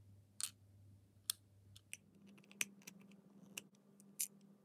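Small plastic clicks and taps as the plastic tail of a Clementoni Robotics SlitherBot robot snake kit is handled and its small screws are put in by hand: a few sharp, irregularly spaced clicks.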